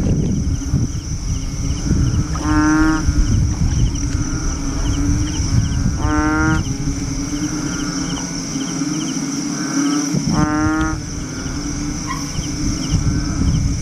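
Frog calling three times, about four seconds apart, each call a short pitched call about half a second long. Under it runs a steady night insect chorus with a faint chirp repeating about twice a second.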